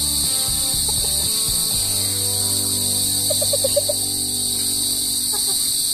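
A steady, shrill insect chorus buzzing without pause, with faint low steady tones underneath.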